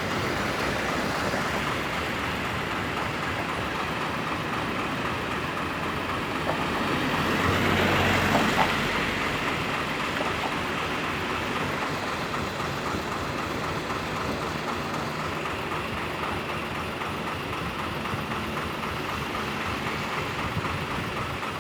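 Steady road traffic noise, with one vehicle passing close and louder about eight seconds in.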